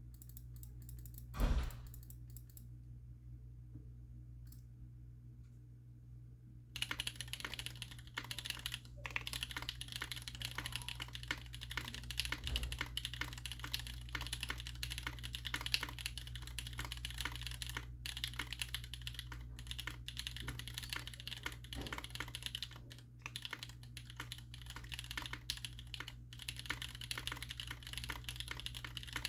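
Typing on a mechanical keyboard with an aluminium plate, SP-Star Meteor Orange tactile switches and GMK doubleshot keycaps, a rather muted sound. There is a single thump about a second and a half in, and the typing starts about seven seconds in and then runs continuously with brief pauses. A low steady hum lies underneath.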